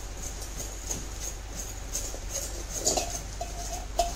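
Knocks and scraping of metal fruit-bowl parts being handled and fitted together, with a short metallic ring after a knock about three seconds in and a sharper knock near the end.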